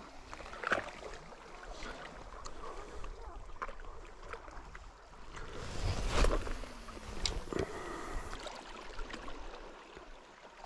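Small waves lapping and gurgling against shoreline rocks, with scattered light clicks from a spinning rod and reel being worked. A louder rush about six seconds in.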